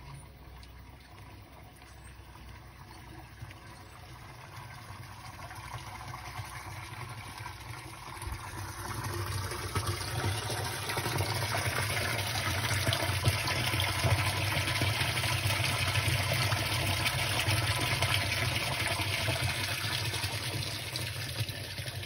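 Leaking water running fast along a street gutter, a steady splashing rush that grows louder from about six to ten seconds in, where the flow reaches a stormwater drain grate.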